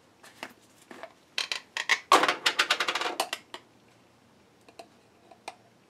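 Clicks and scrapes of a metal spoon against a glass relish jar as relish is dug out. A dense run of rapid clicks comes about a second and a half in, then a few scattered lighter clicks near the end.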